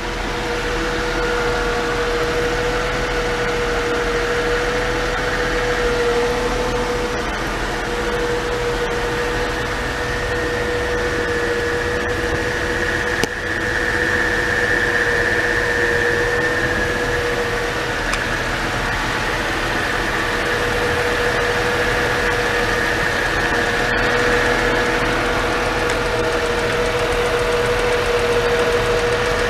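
Mercedes W202 C-Class engine idling steadily, a constant hum with a steady whine over it.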